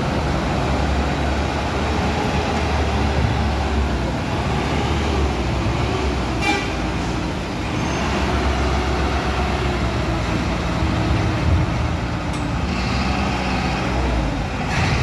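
Heavy trucks' diesel engines running as they drive slowly across the ferry landing, a steady low rumble, with a short horn toot about six and a half seconds in.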